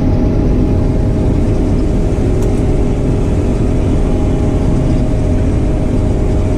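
Claas Mega combine harvester running under load while cutting wheat, heard from inside the cab: a steady, loud drone of engine and threshing machinery with a constant hum.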